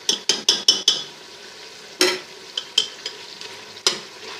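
Beef korma with freshly added fried onions sizzling in ghee in an open pressure cooker as a spoon stirs it. About five quick knocks of the spoon against the pot come in the first second, then a few single knocks.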